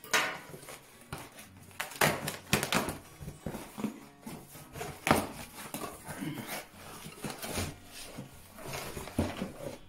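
Cardboard shipping box being handled and opened: the flaps and packing crackle and scrape in a string of sharp rustles and knocks, and a boxed item is slid out of it near the end.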